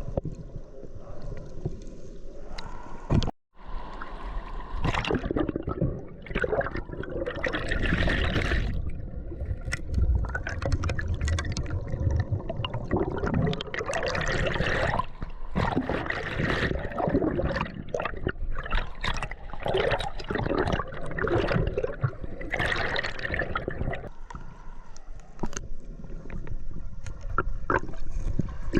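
Fast-flowing river water gurgling and rushing, uneven with many small splashes and bubbles. It cuts out briefly just over three seconds in.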